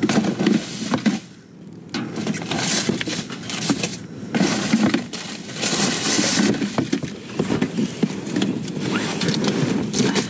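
Plastic bags and cardboard rustling and crinkling, with small knocks, as gloved hands and a grabber stick dig through trash in a dumpster. There is a brief lull about a second and a half in.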